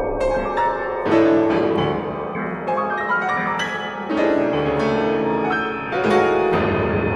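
Grand piano playing contemporary music: about ten separate struck notes and chords at uneven intervals, each left to ring and fade, over sustained electronic sounds.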